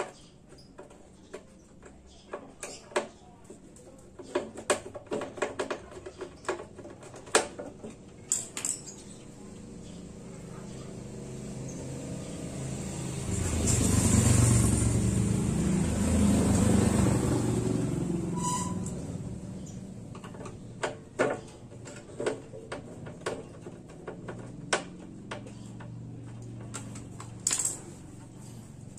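Small sharp clicks and taps of hand work with screws and tools on an open power amplifier's metal chassis. In the middle, a low rushing noise swells up over a few seconds and then fades away.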